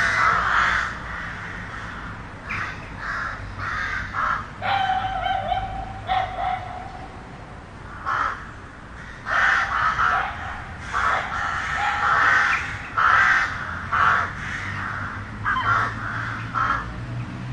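Crows cawing repeatedly in short runs of calls, over a steady low rumble of city traffic.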